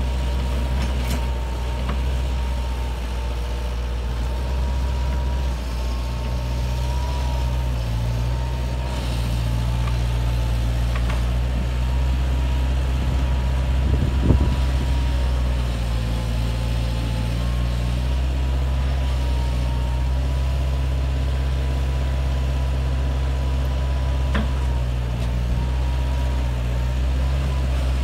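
Engines of a Bobcat 743 skid steer and a Bobcat 442 mini excavator running steadily as they backfill soil, the low engine note shifting slightly with load, over a steady thin whine. One sharp clunk about halfway through.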